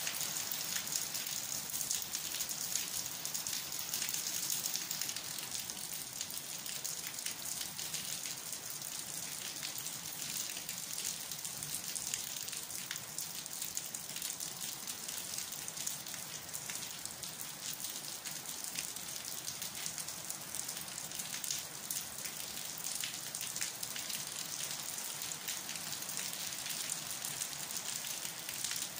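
Steady rain falling: an even high hiss made up of countless small drop ticks.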